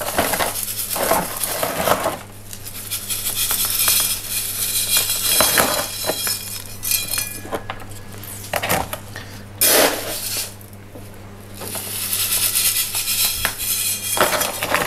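Small pumice gravel rattling as it is poured from a metal scoop into an orchid's net pot, with the scoop scraping and clinking against the stones. It comes in several pours with short pauses between them.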